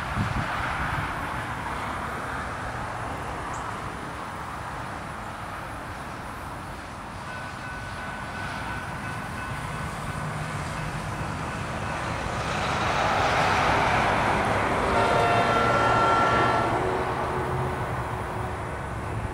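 Two GE B40-8W diesel locomotives with 16-cylinder engines running in a steady low drone as they slowly lead a loaded rock train toward the microphone. About two-thirds of the way through, a louder swell of noise carries several steady tones for a couple of seconds.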